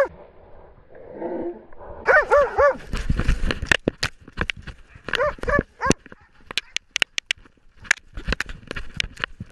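A hunting dog barking close to the microphone in two runs of three barks, about two and five seconds in. From about three seconds on, sharp crackling and snapping as brush and branches hit the dog-mounted camera while the dog pushes through undergrowth.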